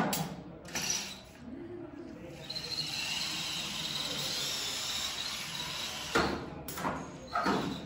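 Small competition robot's electric drive motors whining steadily as it drives on its own, with loud clunks at the start and twice near the end.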